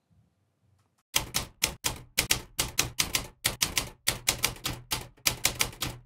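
Typewriter keys clacking in a quick run of single keystrokes, about five a second, starting about a second in: a typewriter sound effect that goes with on-screen text being typed out.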